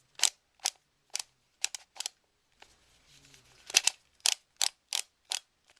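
A modified Skewb twisty puzzle being turned by hand, a sharp click with each twist, about two to three a second with a pause about halfway through. The turning is stiff: the puzzle is new and unlubricated.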